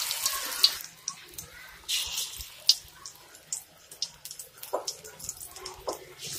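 Pakoras deep-frying in hot oil, with more batter dropped in: a loud sizzle in the first second, then crackling and popping.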